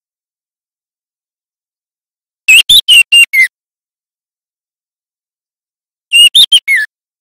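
A juvenile white-rumped shama learning its song: two short phrases of about five clear, high whistled notes each, about three and a half seconds apart. The last note of each phrase slides down in pitch, and there is dead silence between the phrases.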